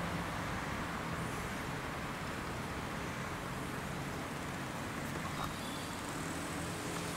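Steady background noise with a low engine hum that weakens and returns, like nearby road traffic.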